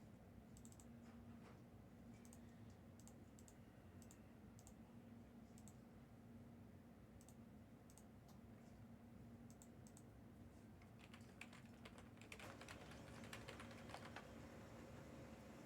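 Faint computer-keyboard typing over a low hum: scattered single key clicks at first, then a quicker flurry of keystrokes a few seconds before the end.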